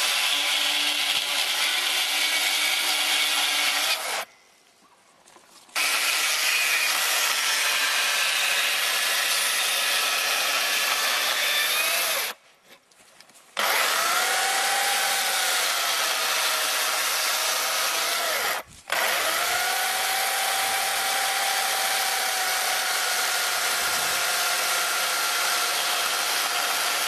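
Stihl E 140 electric chainsaw cutting into a peeled round log, its motor pitch sagging and recovering slightly as the chain bites. It runs in long stretches and stops twice for a second or so, about four and twelve seconds in, with a brief dip near nineteen seconds.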